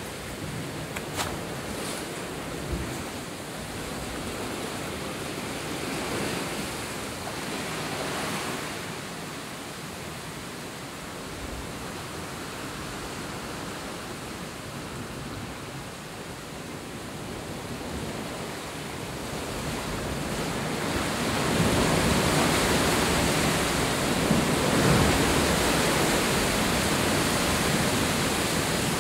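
Sea surf breaking and washing over the rocks below a sea cave: a steady rush of water that swells a few times and grows louder over the last third.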